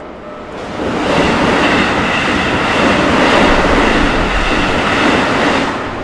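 A train passing over the level crossing: its running noise builds about a second in, holds loud, and eases near the end. The crossing's warning bell rings steadily at the start before the train drowns it out.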